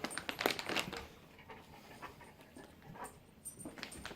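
Large dog panting, quick breaths that are strongest in the first second and then fainter.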